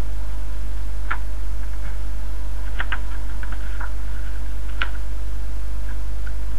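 A loud, steady low hum, with a few faint ticks and crinkles from glossy magazine pages being handled, most of them in the middle.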